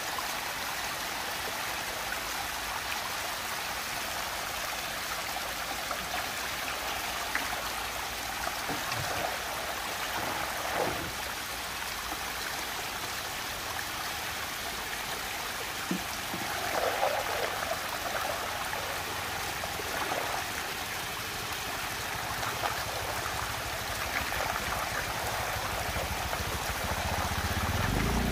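Water rushing and swirling into a large whirlpool vortex, a steady hiss, with a few short louder splashes and gurgles around the middle.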